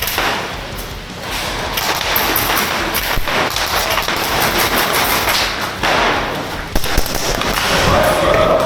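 Airsoft guns firing in rapid runs of sharp clicks mixed with thuds and knocks, with two sharper hits close together about seven seconds in.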